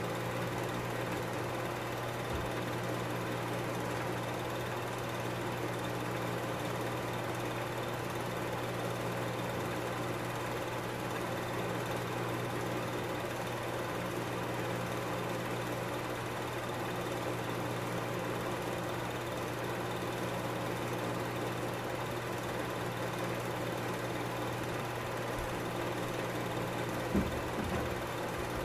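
Film projector running, a steady mechanical whirr with a constant low hum. A single short click comes near the end.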